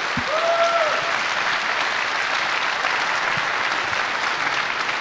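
Large audience applauding, a dense steady clapping that swells slightly in the first second.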